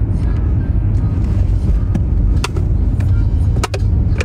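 Steady low rumble of a car interior, with a few sharp clicks and crackles about halfway through and near the end as a boot presses on a plastic water bottle on the floor mat.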